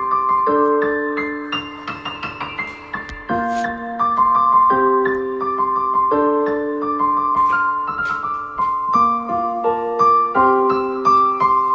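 Background piano music: held chords changing every second or so, with a simple melody over them.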